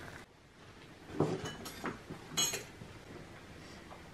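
Clay jugs knocking and clinking on a metal serving tray as it is set down on a table: a few light knocks, then a sharper clink with a brief ring about two and a half seconds in.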